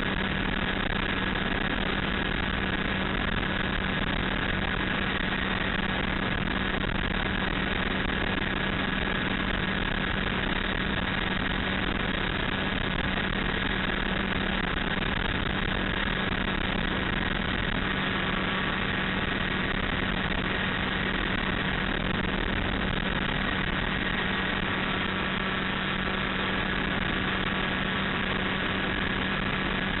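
Light aircraft engine and propeller running steadily in cruise flight, heard from inside the cockpit as an unchanging drone with a strong low hum.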